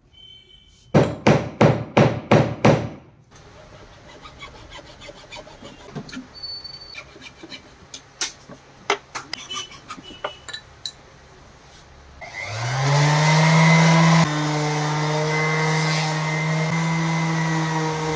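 Hand coping saw cutting wooden dowels flush with the face of an English willow cricket bat: a quick run of about seven loud strokes, then softer scraping with scattered clicks. About twelve seconds in an electric palm sander starts, its hum rising and settling into a steady drone as it sands the willow.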